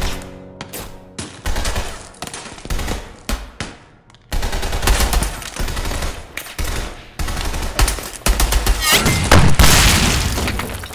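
Gunfire in a film firefight: single shots and bursts of automatic fire, becoming a dense, continuous volley about four seconds in. Near the end a large explosion blows barrels apart, with flying debris; it is the loudest moment.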